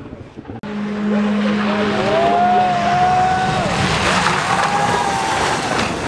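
Rally car engine revving hard as the car powers past through a corner, its pitch rising and falling with gear changes, over tyre and road noise on a wet surface. A sudden cut about half a second in.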